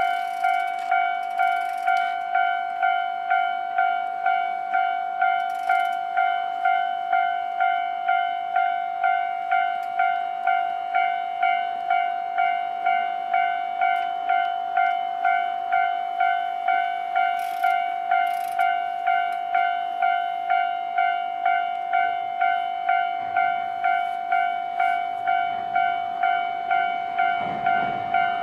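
Japanese level-crossing warning bell ringing, a steady electronic ding repeating about twice a second. Near the end the low rumble of an approaching train grows underneath it.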